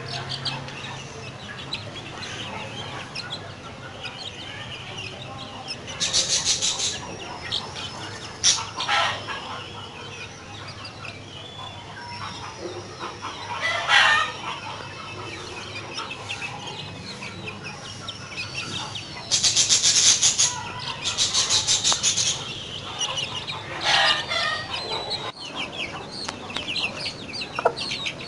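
Chicks peeping over and over while a hen clucks as they dust-bathe in loose sand. Several rasping rustles, each a second or two long, come from wings shaking through the dust.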